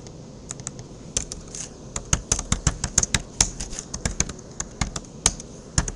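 Computer keyboard typing: a run of quick keystrokes, a few scattered clicks at first, then a dense rapid burst from about two seconds in.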